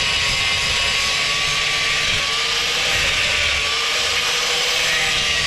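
Angle grinder running steadily against metal, a continuous whine with a hissing grind whose pitch drifts slightly as the load changes.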